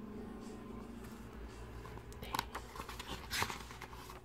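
Pages of a photo book being turned by hand: quiet at first, then several short, papery rustles and flicks in the second half.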